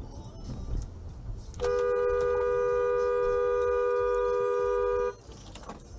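Car horn sounding in one long steady blast of about three and a half seconds, two tones together, starting and stopping abruptly, over low road rumble.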